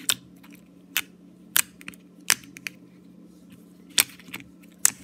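Crunchy fishbowl-bead slime being pressed and squeezed by hand in its plastic container, giving sharp crackling pops about six times at irregular intervals.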